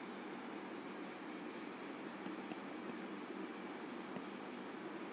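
Whiteboard marker writing on a whiteboard: faint, repeated short scratchy strokes over a steady background hiss.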